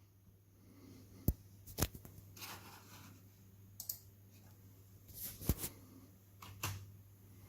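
A handful of sharp, irregular clicks with softer rustling between them, over a faint steady low hum.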